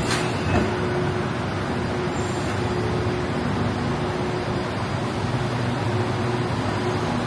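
Steady hum and rumble of vehicles, with a couple of light clicks in the first second.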